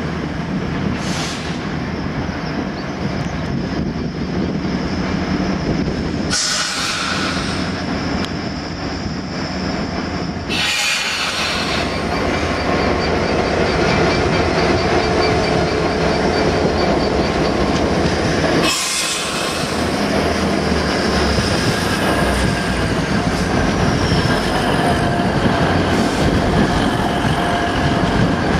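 EWS Class 66 diesel locomotive running through the station, its engine and wheels on the rails, then a Grand Central Class 180 diesel multiple unit moving along the platform. There are thin high squeals from the wheels. The sound changes abruptly three times where the recording is cut.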